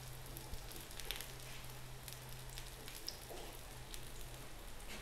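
Potato cutlets shallow-frying in a little oil on a flat tawa: a faint, steady sizzle with scattered small crackles.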